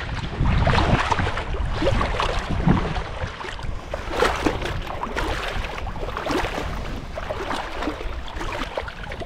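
Splashing, sloshing seawater in the shallows over a reef, with wind buffeting the microphone as a low rumble that is strongest in the first second or so.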